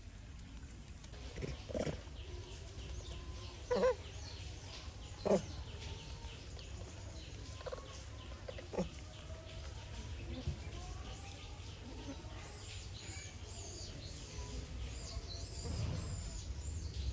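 Scattered short animal calls: a few sharp calls spread through the first half, the loudest two close together a few seconds in, then higher chirping near the end, over a low steady rumble.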